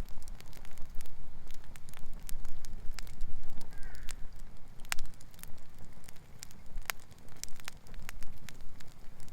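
Wood campfire crackling, with irregular sharp pops and snaps. A bird calls once, briefly, about four seconds in.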